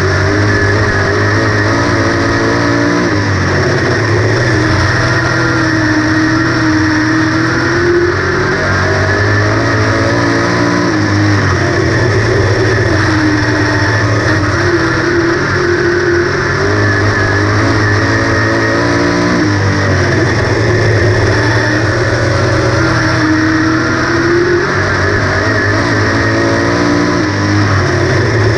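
358 Modified dirt race car's small-block V8 heard from on board at racing speed. The engine note climbs and drops again and again every few seconds as the car goes on the throttle and lifts, lap after lap.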